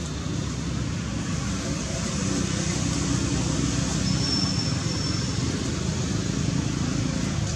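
Steady low background rumble, with a thin high tone about four seconds in that lasts over a second.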